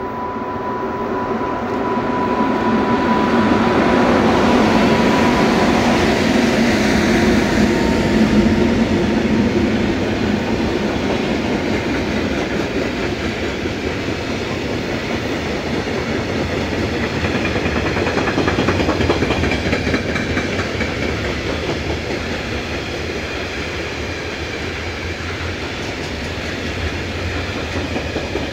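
Freight train behind two ÖBB electric locomotives passing close by, a long line of open freight wagons rolling past with the steady clatter of wheels on the rails. A steady high whine sounds over the train noise and fades about six seconds in.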